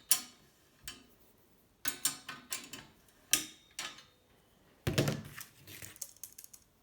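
Sharp metallic clicks and knocks from handling a steel bicycle frame and workshop tools, with a heavier thump about five seconds in followed by a few small rattles.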